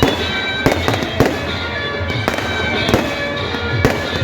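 Fireworks going off: about six sharp firecracker bangs at uneven intervals. Music with long held tones plays underneath.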